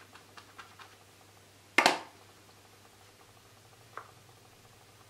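Tabletop craft handling: a single sharp knock about two seconds in as a glue brush is set down, then faint ticks and a soft tap as a small fabric piece is pressed onto the glued paper collage.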